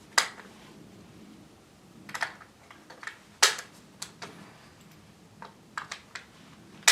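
Sharp metallic clicks and clacks from an AR-15-type rifle being handled, about eight in all at uneven intervals, as the magazine and bolt catch are worked.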